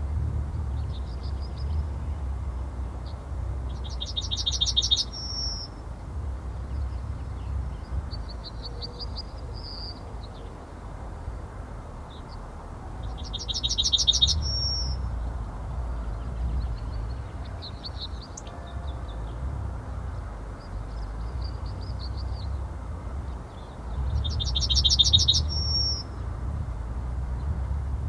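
Male yellowhammer singing its song three times, about ten seconds apart: each phrase is a fast run of repeated notes ending in a higher drawn-out note. A steady low rumble runs underneath.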